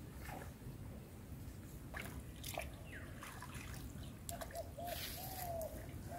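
Faint trickling and dripping of water, with scattered small splashes and clicks, from hands working in shallow muddy water. A faint steady tone comes and goes in short stretches in the second half.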